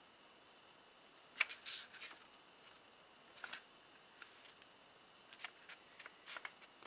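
Paper pages of a user manual being leafed through: faint rustles about a second in and again in the middle, then a cluster of short rustles and light clicks near the end.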